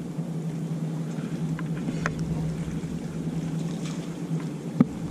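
Steady low engine drone, with a few faint clicks and one sharp click near the end.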